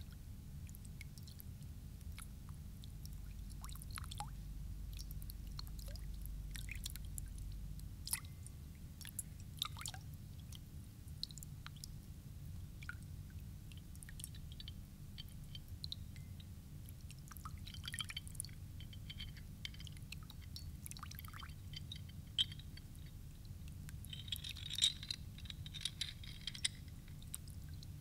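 Quiet stage with a steady low hum, and scattered faint clicks and crackles that thicken into a small cluster near the end.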